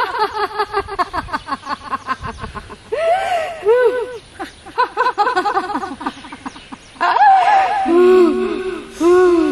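A young woman laughing loudly and at length. It starts as a fast run of falling "ha-ha" pulses, then turns into slower, drawn-out laughs that rise and fall, lower in pitch near the end.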